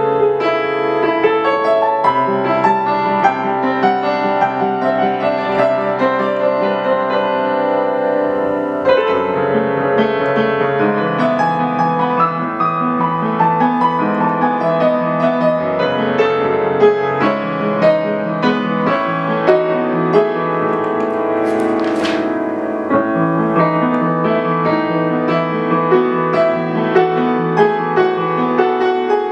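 Solo piano playing a flowing instrumental piece: many quick notes over held chords, with the harmony and bass shifting every few seconds.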